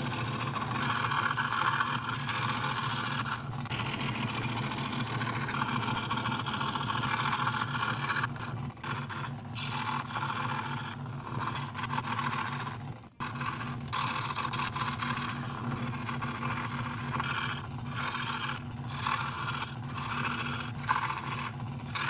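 Scroll saw running and cutting small wooden parts: a steady motor hum under the rasp of the reciprocating blade in the wood, which eases briefly several times as the piece is turned and stops for a moment about halfway through.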